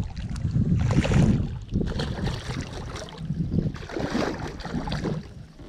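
Water splashing as a hooked trout thrashes at the surface during the fight, in surges about a second in and again later, over wind rumbling on the microphone.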